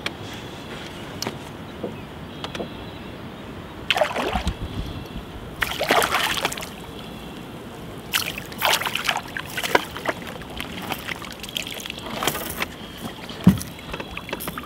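A hooked bream splashing and thrashing at the water's surface beside a boat, in several irregular bursts of splashing. A single sharp knock comes near the end.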